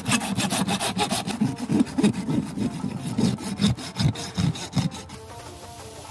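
A farrier's rasp scraping a horse's hoof in quick, regular strokes, several a second. About five seconds in the strokes stop and a steady hiss begins: a hot horseshoe is pressed against the hoof to seat it, and the horn burns and smokes.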